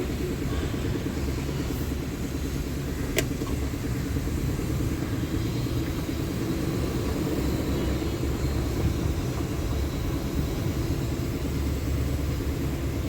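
Maruti WagonR K-series petrol engine idling steadily, running again after its engine control module was repaired. A single short click about three seconds in.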